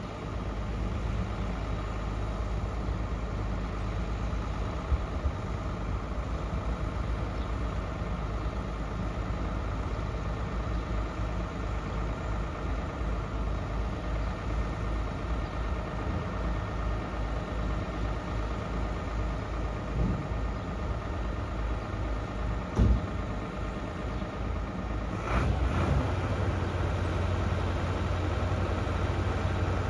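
Ford Cargo 0813 truck's diesel engine idling with a steady, pulsing low rumble. A single knock comes about 23 seconds in, and from about 25 seconds the engine grows louder and fuller as it is revved or put under load.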